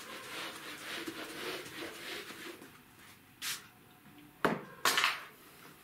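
A whiteboard wiped with a duster: a soft, rubbing swish in repeated strokes for the first two or three seconds. Three short, sharp sounds follow in the second half, the last two the loudest.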